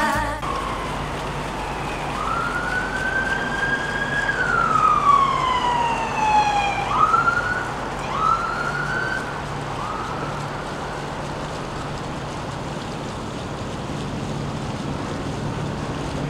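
Emergency vehicle siren wailing: one long rise and slow falling sweep, then several short rising whoops that fade out about ten seconds in. A steady low hum and a noisy background run underneath.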